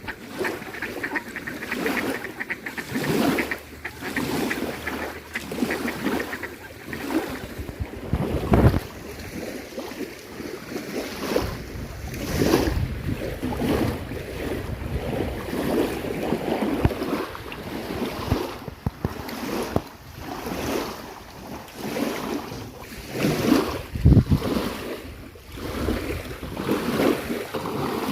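Waves washing onto the shore in uneven surges, with wind gusting on the microphone and waterfowl calling.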